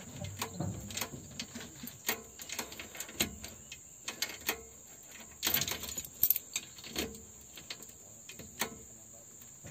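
Scattered, irregular clicks and knocks, with a burst of louder ones around the middle, over a faint steady high-pitched hum.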